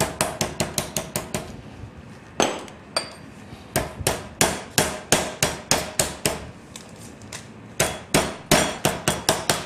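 Heavy metal meat bat tapping a chicken breast flat through cling film on a wooden chopping board: runs of quick, even taps, about three or four a second, broken by two short pauses.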